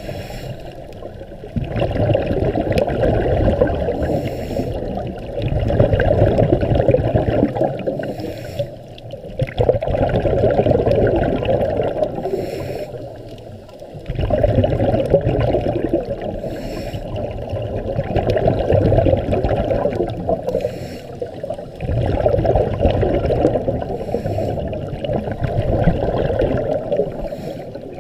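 Muffled underwater rush of water heard through a camera's waterproof housing, swelling and fading every few seconds as the camera moves through the water.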